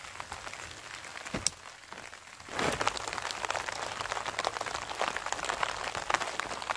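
Steady rain, its drops pattering on tent fabric close by, with one sharp click about a second and a half in. About two and a half seconds in, the pattering turns louder and denser.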